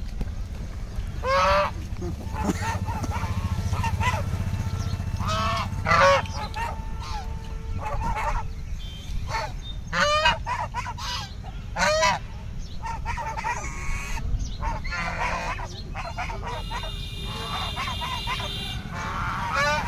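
White domestic geese honking, short loud calls every second or two from several birds.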